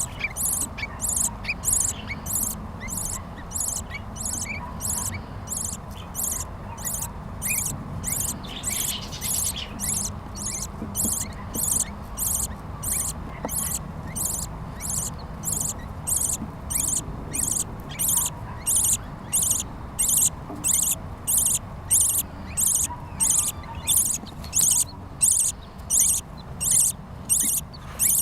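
Budgerigar chicks begging, a very high, thin cheep repeated evenly about twice a second, the call of chicks asking to be fed.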